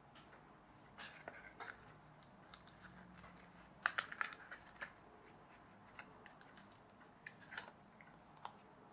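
Pre-cut card pieces of a press-out pullback plane kit being popped out of their sheet and folded: scattered light clicks and crackles, with a quick cluster of them about four seconds in.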